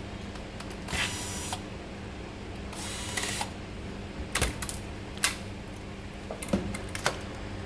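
Screws being taken out of a graphics card: two short scraping bursts about a second and three seconds in, then a handful of sharp light clicks of small metal parts.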